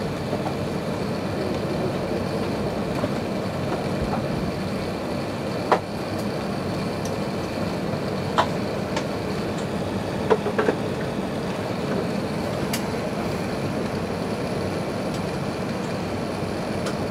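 Steady cabin noise inside an Airbus A380 taxiing: an even hum and hiss from the engines and air conditioning, with a few sharp clicks about six, eight and ten seconds in.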